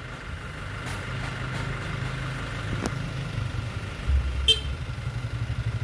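Crane truck's engine running steadily at idle, with a short, sharp metallic clink about four and a half seconds in.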